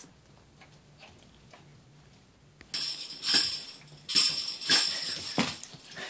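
A cluster of jingle bells hanging from a door handle jingles in two bouts, the first about three seconds in and the second about a second later. A dog is knocking them with its paw or nose, ringing them to be let out.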